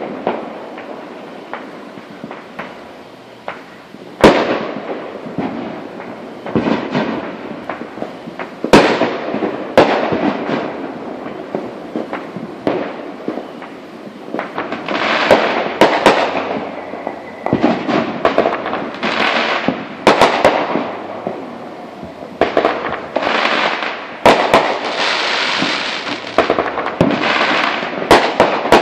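Aerial fireworks going off: a string of sharp bangs, some in quick clusters, with longer stretches of dense crackling noise between them in the second half.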